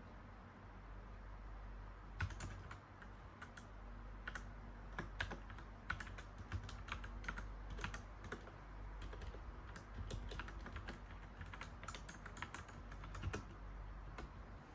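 Typing on a mechanical keyboard: irregular runs of sharp key clicks that start about two seconds in and pause near the end, over a faint steady low hum.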